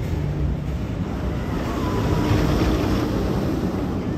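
Steady low rumbling outdoor noise with a hiss on top, swelling a little around the middle.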